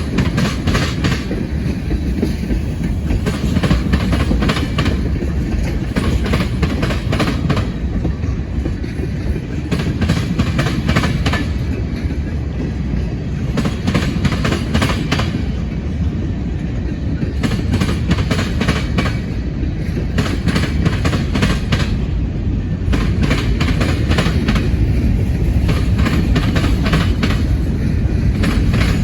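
Freight train cars rolling past: a steady low rumble, with bursts of wheel clicks every few seconds as the wheel sets cross rail joints.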